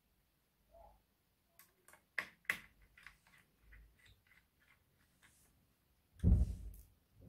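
Small screwdriver clicking and scraping against a screw and the metal bracket of a laptop SSD, a run of light ticks with two sharper clicks about two seconds in. A dull thump about six seconds in is the loudest sound.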